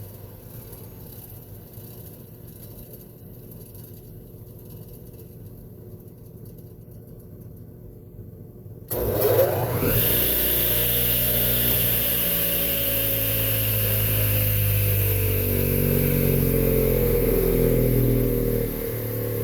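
Radial arm saw's electric motor, freshly cleaned, switched on with the blade fitted. About nine seconds in it starts suddenly, spins up within a second or so and then runs steadily with a whine and hiss.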